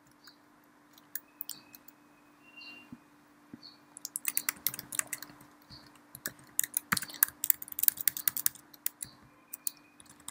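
Computer keyboard typing. A few scattered keystrokes come first, then from about four seconds in a quick, dense run of key clicks, over a faint steady hum.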